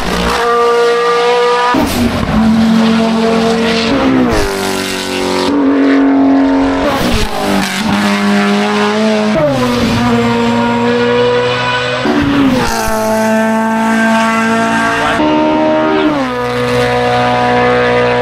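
Hill-climb racing cars, among them an open sports prototype, running hard at high revs up the course. The loud, high engine note holds steady for a couple of seconds at a time and then drops sharply in pitch, again and again.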